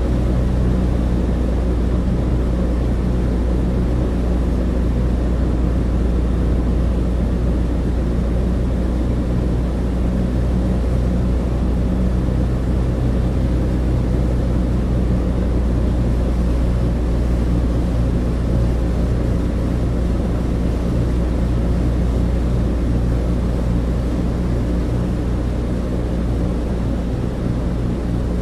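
Steady, even drone of a Douglas DC-3's two radial piston engines and propellers, heard inside the cabin, with a deep hum and steady low engine tones that do not change.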